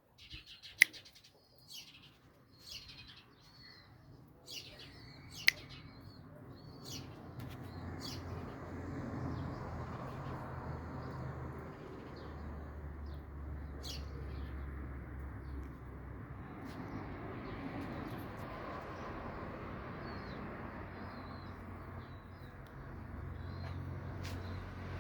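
Farm birds chirping in short high calls, with two sharp clicks in the first few seconds; from about seven seconds in, a steady low rumbling noise rises under the chirps and stays.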